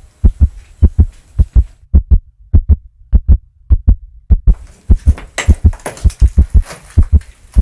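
Heartbeat sound effect: loud, low thumps in double beats, about two a second, keeping a steady pace throughout, used as a suspense cue.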